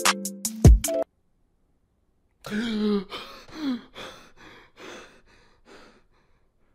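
A short music sting with a heavy bass hit cuts off about a second in. After a pause, a man lets out a strained vocal sound and then a run of short gasping, coughing breaths that fade away.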